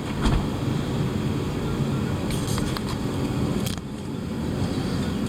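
A low, steady rumbling growl, the angry refrigerator's noise, with a few faint clicks.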